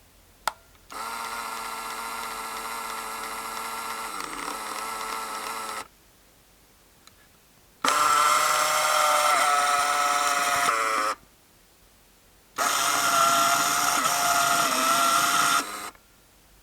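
Super 8 film camera (Porst Reflex ZR 422) running, its film-transport motor whirring in three separate runs of about five, three and three seconds, after a single click near the start. The pitch dips briefly in the middle of the first run.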